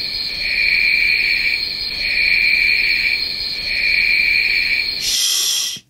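Night-time insect ambience: crickets chirping in long trills that swell and fade about every second and a half over a steady high drone. A short hiss near the end, then the sound cuts off abruptly.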